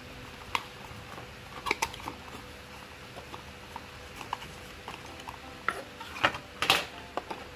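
A small cardboard box being opened and tipped by hand: scattered light taps, scrapes and clicks of card and fingers, with the loudest cluster near the end.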